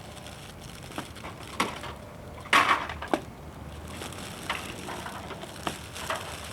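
An Easter basket's wrapping crackling and crinkling in irregular bursts as a small child tries to open it, loudest about two and a half seconds in.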